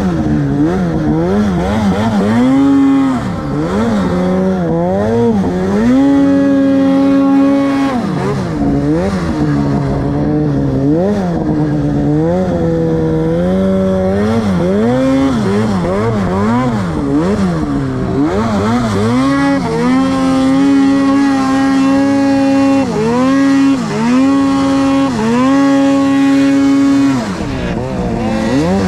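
Two-stroke mountain snowmobile engine, heard from the rider's seat, revving up and down over and over as the throttle is worked through deep powder, with several long stretches held at high revs.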